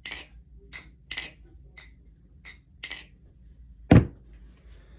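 Balisong (butterfly knife) being flipped: a series of sharp metallic clacks as the handles swing and strike each other, about six in three seconds. About four seconds in there is a single heavy thump, the loudest sound.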